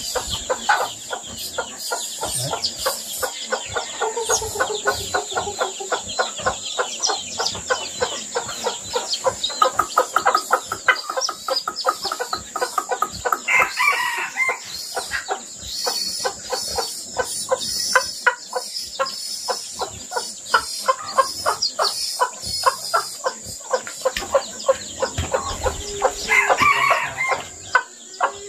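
A brood of chicks peeping rapidly and continuously, with a mother hen clucking among them. A rooster crows twice, about halfway through and again near the end.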